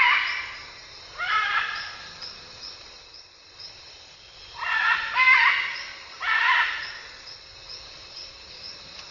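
Scarlet macaws calling: loud, coarse squawks in about five bursts, two of them close together around five seconds in, with quieter gaps between.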